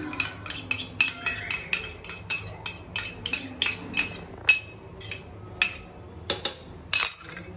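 Repeated light steel clinks, about three a second, as grated, sautéed bottle gourd is knocked out of a stainless steel bowl into a steel pot of milk. The clinks ring briefly, with louder knocks about four and a half and seven seconds in.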